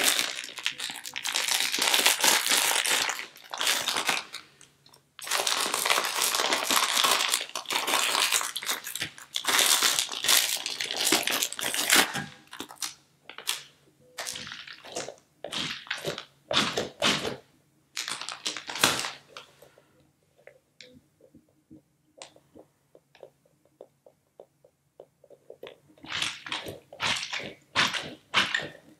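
Plastic packaging crinkling loudly as a squishy toy is unwrapped, in two long stretches. From about twelve seconds in, a water-bead-filled stress ball is squeezed by hand, giving short, scattered squishing clicks that bunch up again near the end.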